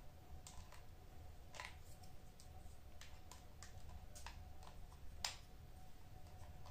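Faint, irregular clicks and taps of a Umarex Glock 19 CO2 BB pistol's grip and its cartridge-tightening tool being handled as a CO2 cartridge is fitted. The sharpest click comes about five seconds in.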